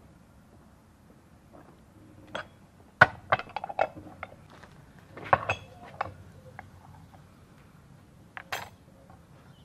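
Kitchen utensils and containers clinking and knocking against an enamel bowl and the table, a run of sharp clinks with the loudest about three seconds in and a couple more near the end.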